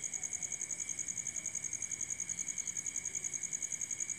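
A cricket singing: a steady high-pitched trill that pulses evenly, about thirteen times a second.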